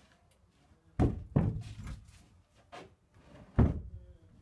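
Four heavy thuds at uneven intervals, the loudest about a second in and another near the end.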